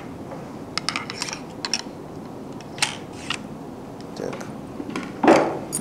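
Clicks, rattles and light knocks of a Scorpion (Poe Lang Jaguar) recurve crossbow and its aluminium bolt being handled, with one louder knock about five seconds in.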